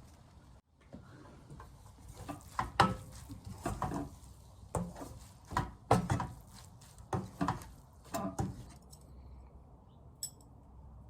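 A kitchen utensil knocking and scraping against cookware in a run of irregular knocks that stops about two-thirds of the way through.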